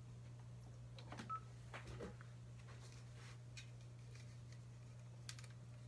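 Near silence: a steady low hum, with a few faint clicks and a brief faint beep about a second in.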